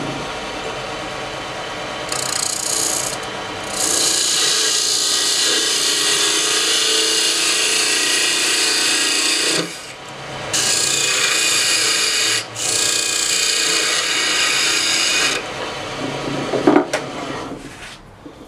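Lathe tool cutting inside the bore of a spinning Ambrosia Maple ring blank: a steady hissing scrape, enlarging the hole to fit a stainless steel ring core. The scrape breaks off briefly about 3, 10 and 12.5 seconds in. After about 15 seconds the cutting stops, and a few light clicks follow as the lathe winds down.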